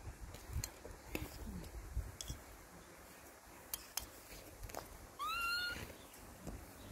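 An otter's single high call, rising in pitch and then held briefly, about five seconds in, with a few light clicks and taps around it.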